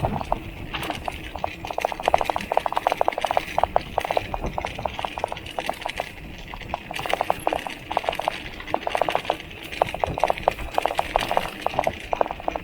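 Water bottle rattling in a mountain bike's bottle cage as the bike rides over rough ground: rapid metallic clattering that comes in bursts of fast clicks, over low rolling noise.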